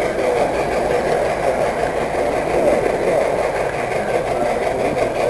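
Model train running steadily along its track, a continuous motor and wheel rumble heard from the camera riding on the train.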